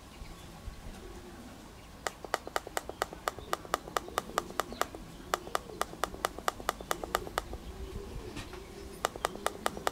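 Rapid, regular clicks of a Brikon Speedy pigeon-racing clock's button pressed repeatedly by thumb to scroll through logged arrival times, about four a second. They start about two seconds in, pause for over a second, and start again near the end.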